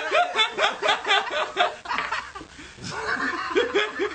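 A person laughing in rapid, rhythmic bursts. The laughter breaks off about two seconds in and starts again about a second later.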